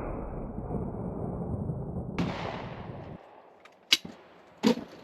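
Rizzini BR460 EL over-and-under shotgun fired twice in quick succession at clay targets: two sharp shots about three-quarters of a second apart, the first the louder, after a few seconds of steady background noise.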